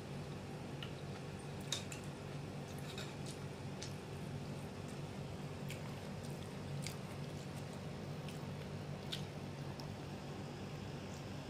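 A man eating glass noodles and pork from a bowl with chopsticks: faint chewing and slurping, with a few scattered sharp clicks, over a steady low hum.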